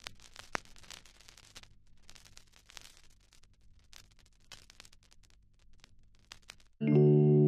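Faint crackling static with scattered clicks and pops over a low hum. Near the end, music cuts in loudly with sustained keyboard chords.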